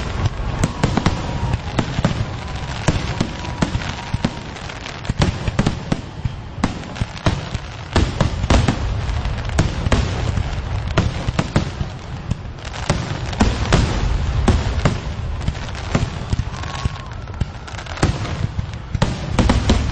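Fireworks going off in quick succession: a steady rumble of distant bursts with many sharp bangs and crackles on top, never pausing.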